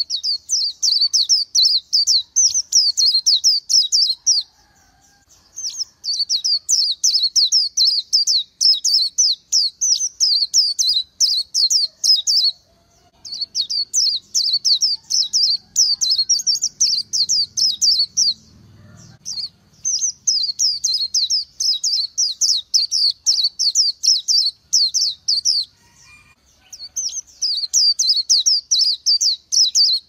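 Oriental white-eye singing: long runs of rapid, high twittering notes, broken by four short pauses.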